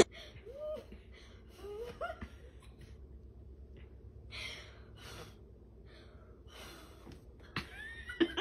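A woman gasping and breathing in shocked, stifled laughter, breaking into louder laughter near the end.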